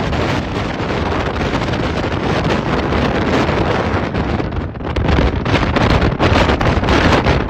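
Heavy wind buffeting the phone's microphone on the outside of a car moving at highway speed. There is a brief lull about four and a half seconds in, then harsher gusts.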